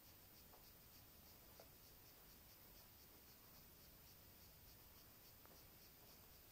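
Near silence: faint high-pitched chirping pulsing about five times a second, with a few faint clicks as antenna wire is handled.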